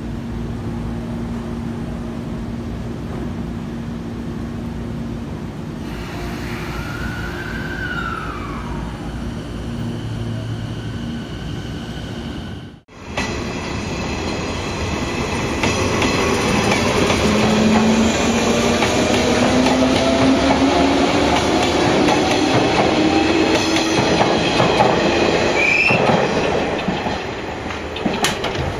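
Electric commuter trains standing at a station platform. First comes a steady electrical hum. After a sudden cut about 13 s in, a louder stretch follows, with slowly rising tones in the middle.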